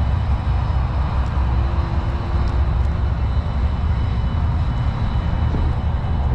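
Wind rushing over the microphone and road rumble from a Lime electric scooter riding steadily, with a faint steady high whine.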